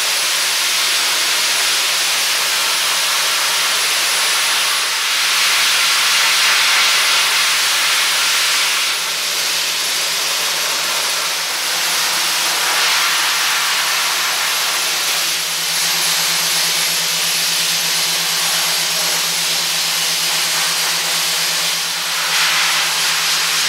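Media blaster running: a steady, loud hiss of compressed air and fine glass-and-soft blasting media streaming from a hand-held nozzle onto steel car body panels, stripping the paint to bare metal, with a low steady hum underneath.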